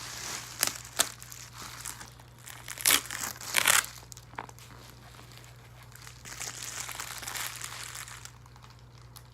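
Packaging crinkling and rustling as it is handled and unwrapped, with several sharp crackles in the first four seconds, then softer rustling.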